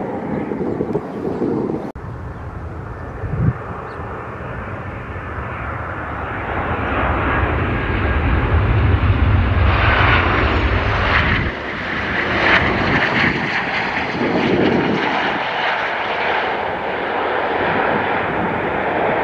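An airliner passing close by, its engine noise building to a deep rumble around the middle and staying loud to the end.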